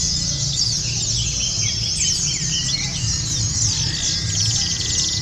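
Many white-eyes (pleci) singing at once, a dense unbroken chorus of rapid high chirps and quick falling trills overlapping each other, as at a white-eye song contest.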